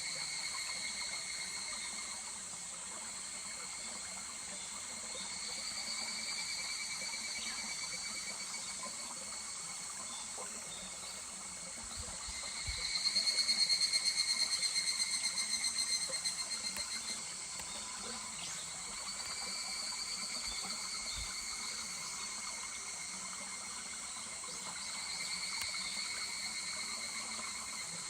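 Higurashi (evening cicadas) calling in rapid pulsed trills that swell and fade every several seconds, one nearer and louder about halfway through, over the steady murmur of a small stream.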